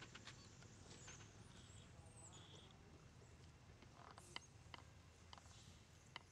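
Near silence: faint outdoor background with a few soft, high chirps in the first couple of seconds and scattered light clicks later on.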